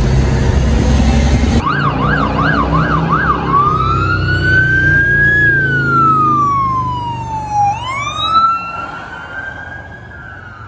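A truck engine runs inside the cab for the first second and a half. An ambulance siren then starts with a fast yelp, about two to three sweeps a second, and switches to a slow wail that rises and falls. The wail fades as the ambulance drives away.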